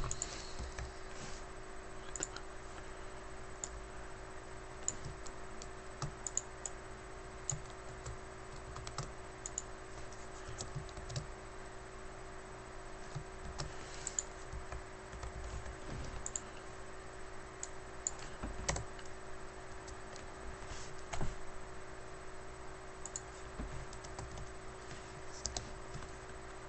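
Typing on a computer keyboard: scattered, irregular keystrokes over a steady hum.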